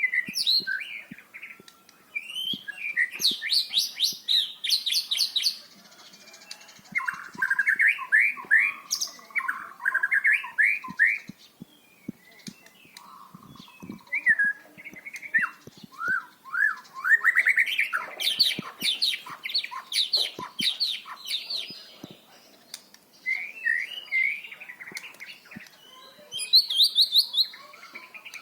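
White-rumped shama singing loudly in varied phrases: runs of fast repeated whistled and chattering notes, each phrase a second or two long, with short pauses between them.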